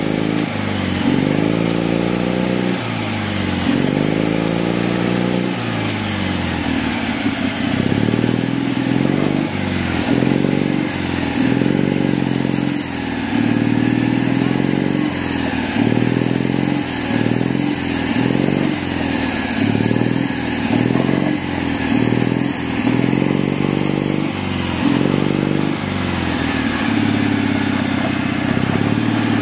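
Small petrol engine of a lure-coursing winch, revving up and down over and over, its pitch rising and falling every second or two as the lure's speed is varied to pull it across the field.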